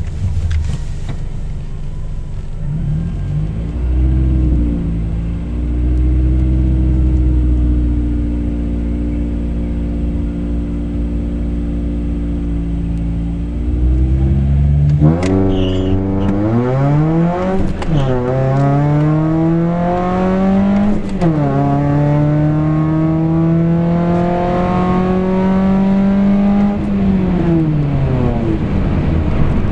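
2007 Scion tC's 2.4-litre four-cylinder engine, with aftermarket intake, headers and exhaust, heard from inside the cabin on a drag-strip run. It runs at steady raised revs for several seconds. About halfway through it launches and climbs in pitch through the gears, with two upshifts. The revs then fall away near the end as the throttle is lifted.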